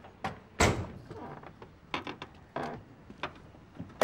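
Car door thudding about half a second in, followed by a few lighter clicks and steps, and another door slam at the very end.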